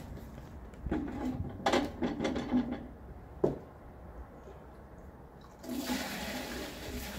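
A few irregular knocks and clunks of a tank and plastic tub being handled, then, from about six seconds in, a steady rush of water being poured out and splashing.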